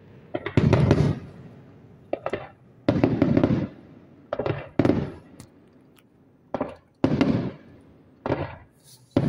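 Aerial fireworks shells bursting in quick succession, about one volley of bangs a second, each volley trailing off in an echoing tail.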